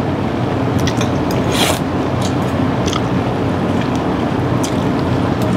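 Close-up eating sounds of a mouthful of creamy carbonara spaghetti: chewing with wet mouth clicks and a short slurp of noodles about a second and a half in, over a steady low background hum.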